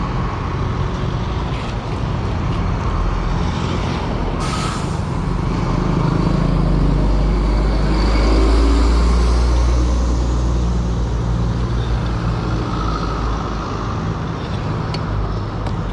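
Road vehicle running on a road: a steady engine rumble that swells about six to ten seconds in, with a short hiss about four and a half seconds in.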